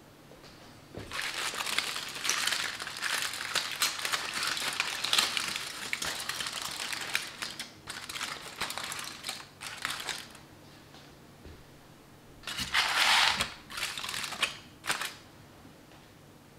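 Aluminium foil crinkling as a foil-wrapped packet is pulled open by hand. The long stretch of crackling crinkles eases off, and two shorter bursts of crinkling come near the end.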